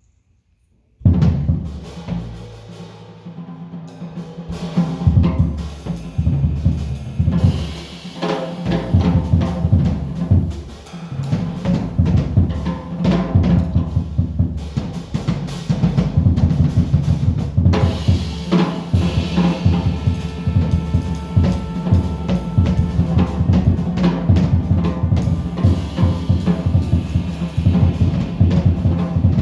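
Drum-heavy music with a steady beat and bass line, starting suddenly about a second in after a moment of near silence.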